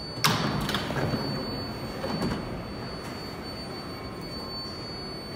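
A sudden burst of noise with clunks from a stopped R188 subway train at the platform, fading within about a second, with a smaller one about two seconds in. A steady station rumble runs underneath.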